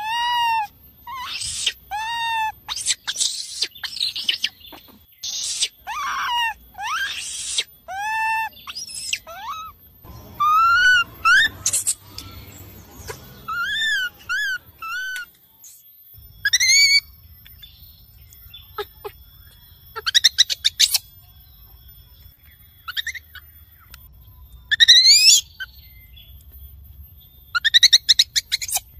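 Baby monkey screaming for its mother: a quick series of short, high cries, each rising then falling in pitch. About halfway through they thin out to a few scattered shrill, upward-sweeping calls.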